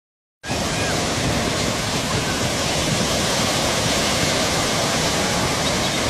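Steady rushing noise of wind and sea water.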